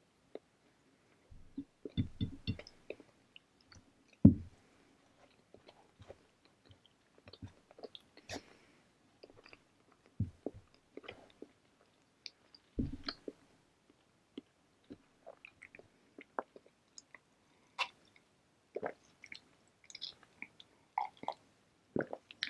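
A person chewing bagel bread close to the microphone: irregular mouth smacks and soft clicks, with a louder thump about four seconds in.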